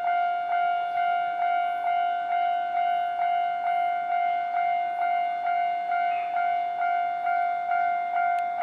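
Railway level crossing warning bell ringing steadily, about two strikes a second, each a clear ringing tone that dies away quickly before the next.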